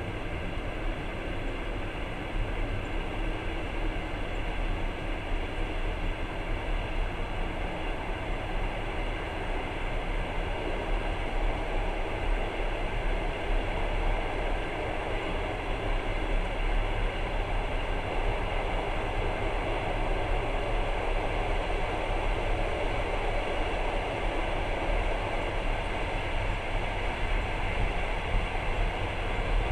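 Passenger train running along the line, heard from inside a carriage: a steady noise of the wheels and running gear, strongest in the low end.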